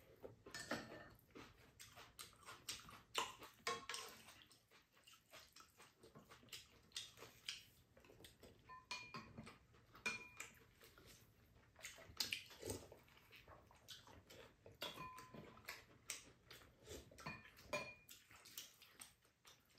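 Eating at a table: soft chewing and mouth sounds, with chopsticks and spoons clicking against ceramic bowls and a pan, a few of the clinks ringing briefly.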